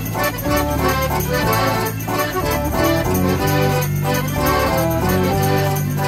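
105-key Decap dance organ playing a dance tune: accordion and pipe melody over sustained bass notes, with drum beats.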